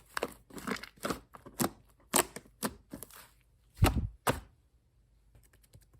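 Pink shaving-foam slime being squeezed and pressed, giving off irregular crackling pops and clicks, with two louder pops a little before four seconds in. Faint rapid tapping starts near the end.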